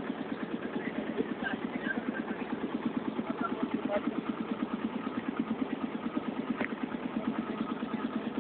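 Ferry motorboat's engine running steadily with a fast, even pulse, over the rush of water churning along the hull.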